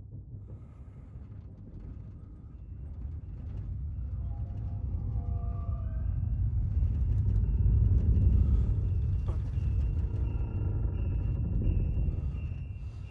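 A deep rumble that swells to its loudest about two-thirds of the way through and then eases, with faint high steady tones and a few clicks over it.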